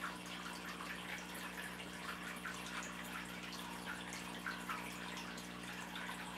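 Steady low background hum under a constant light trickling, dripping patter.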